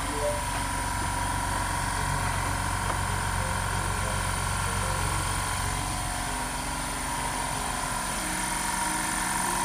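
Air compressor running steadily with a constant hum as it fills its tank.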